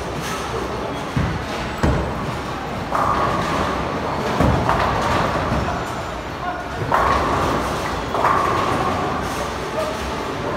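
Bowling alley sounds: balls rolling down the lanes in a steady low rumble, with a couple of sharp thuds and pins being knocked down, under background voices.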